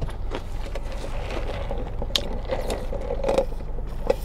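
Close-up eating sounds: chewing crispy fried fish with a few sharp clicks, then a sip through a straw near the end, over the steady low hum of the car's air conditioning.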